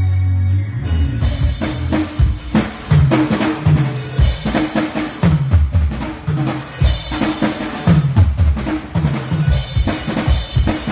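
Live band playing an upbeat groove, with the drum kit leading on kick, snare and rimshots over a moving bass line. A held low chord breaks off about a second in as the drums come in.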